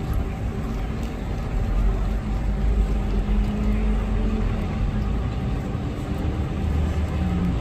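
Steady low rumble of city traffic, with the hum of vehicle engines running.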